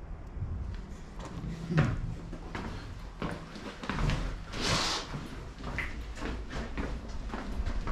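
Footsteps and knocks on the wooden plank floor of an old railroad car, with a brief rustle about halfway through.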